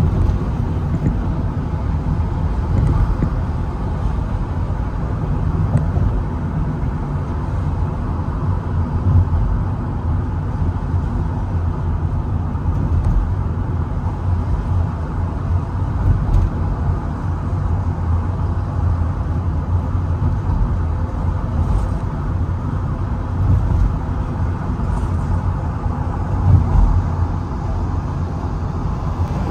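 A car driving steadily on a city highway: continuous low rumble of tyres and engine, with no sharp events.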